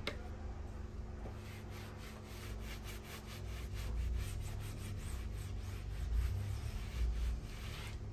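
Repeated rubbing strokes over a surface, several a second, coming and going in runs.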